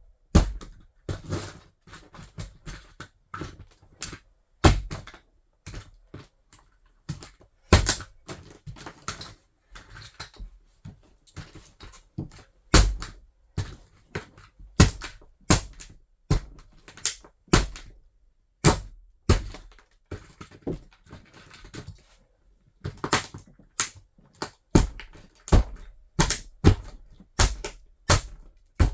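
Toy car being crushed under a wedge sandal: a long irregular run of sharp cracks and snaps, with quieter crackling and crunching between the louder breaks.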